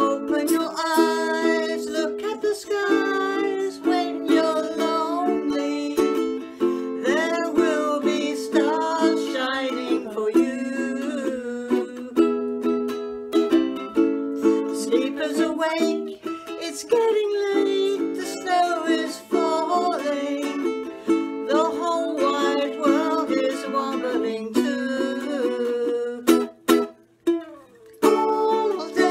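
Ukulele strummed in chords accompanying a Christmas song sung by women's voices. The playing drops out for a moment near the end, then the strumming resumes.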